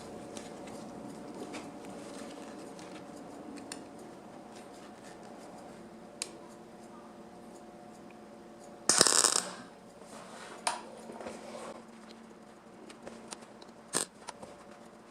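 Workshop handling sounds: scattered light clicks and clinks of tools and metal parts over a faint steady hum, with one short, loud burst of noise about nine seconds in.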